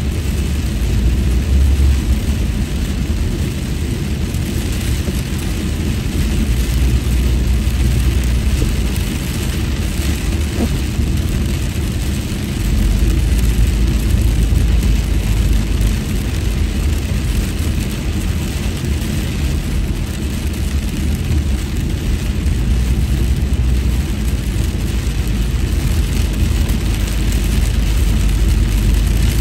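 Steady road noise heard inside a moving car on a wet freeway: a deep rumble that swells and eases at times, over a hiss of tyres on the wet road.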